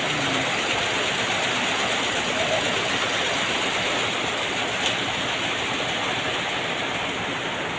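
A steady running engine, heard as an even noisy hum without a clear pitch, with a single light click about five seconds in.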